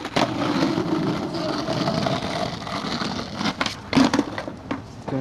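Skateboard wheels rolling on rough pavement for about three seconds, then a few sharp clacks of the board and a loud impact about four seconds in as a flip trick is attempted.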